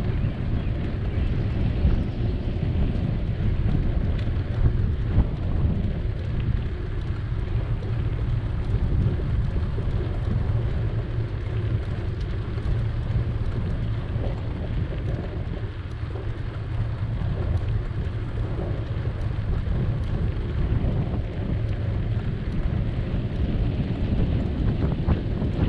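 Wind buffeting the microphone of a moving bicycle: a steady low rumble with a fainter hiss above.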